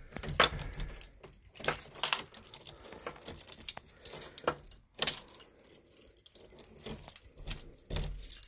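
A bunch of keys jangling and clinking in irregular bursts.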